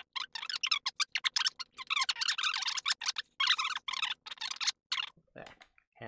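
Rapid, irregular scratchy scraping and rustling of tools and parts being handled on a workbench, stopping about five seconds in.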